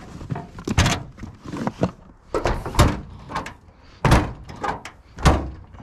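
A string of about ten knocks and thuds as gear is handled in a pickup's truck-bed box and its metal lid is shut.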